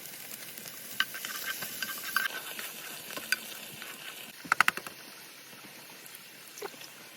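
Food sizzling in a pan over a camp stove: a steady hiss, with sharp metallic clinks of a utensil about one second in, about three seconds in, and a quick cluster of clinks just past the middle.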